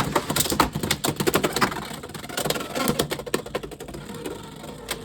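Two Beyblade X spinning tops battling in a plastic stadium: a fast clatter of hard clicks and knocks as they hit each other and the stadium, thinning after a few seconds into a quieter spin with only the odd click.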